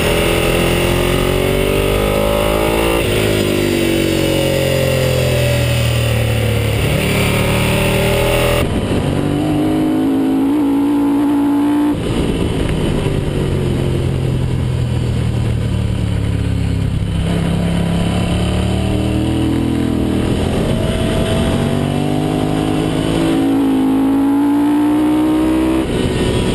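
Sport motorcycle engine heard on board at speed, the pitch climbing as it revs and dropping at each gear change or on easing off, over steady wind noise. The sound changes abruptly about nine and about twelve seconds in, where different riding clips are cut together.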